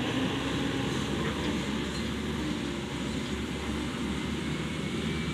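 Diesel dump truck's engine running as the truck drives away along a rough dirt track.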